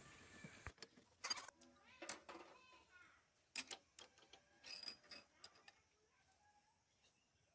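Faint, scattered metallic clicks and clinks of hand tools and engine parts being handled, in a handful of separate taps over the first five seconds.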